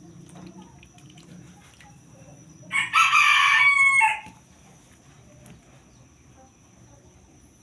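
A rooster crows once, about three seconds in, a single call lasting about a second and a half that drops in pitch at the end. A faint low hum and small clicks sit underneath.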